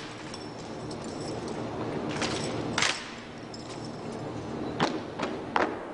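Sharp cracks of drill rifles being slapped and struck during an armed drill routine: two a little past two seconds in, then three in quick succession near the end.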